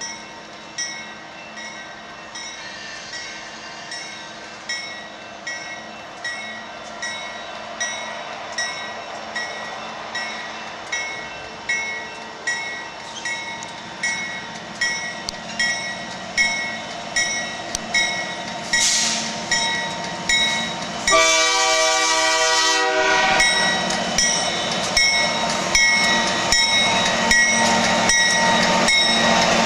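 A bell rings steadily about once a second, growing louder, then a Nathan K3-series three-chime locomotive air horn sounds one blast of about two seconds, after which the bell keeps ringing over the train's running noise.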